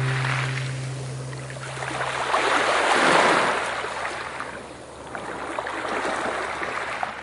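Ocean surf: waves breaking and washing in, swelling and ebbing twice about three seconds apart. A held musical note fades out in the first couple of seconds.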